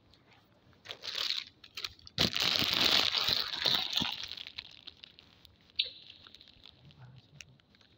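Handling noise from a phone being moved around and rubbed: a short crinkling rustle about a second in, then a louder rustle lasting about two seconds, a sharp click near six seconds and faint scattered ticks.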